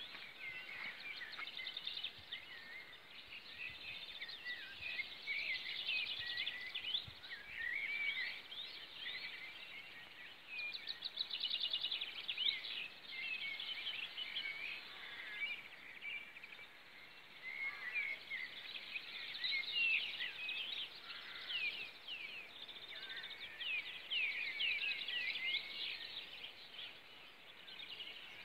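Several songbirds singing at once: a dense chorus of overlapping high chirps and trills with no break.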